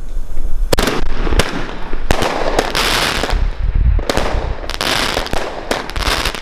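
Aquarius 25-shot fireworks cake firing. Sharp launch shots come roughly every half to two-thirds of a second, with a short pause near the middle, and each is followed by a hissing, crackling burst of glittering stars.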